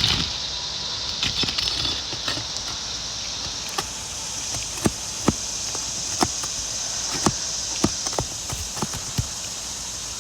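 Scattered sharp clicks and taps of asphalt shingles being pried up and worked loose by hand and tool while the fasteners are checked for nail pops, most of them in the second half, over a steady high hiss.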